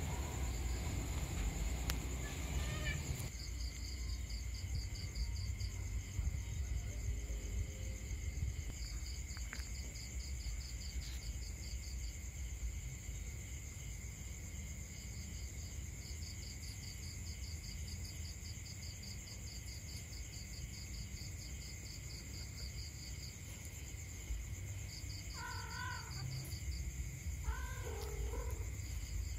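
Night insects trilling in repeated trains of quick pulses over a steady high drone, then a cat giving a few short meows near the end.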